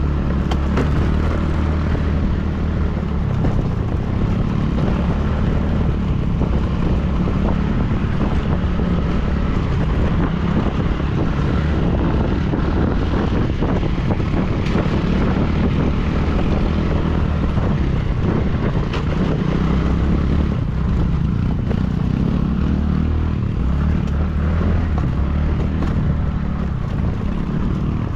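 Motor vehicle engine running steadily on the move, with wind rumbling on the microphone.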